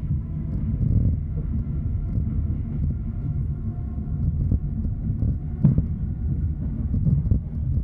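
ED4M electric multiple unit running, heard from inside the carriage: a steady low rumble of wheels on rails with a faint whine over the first few seconds, and one sharper knock about five and a half seconds in.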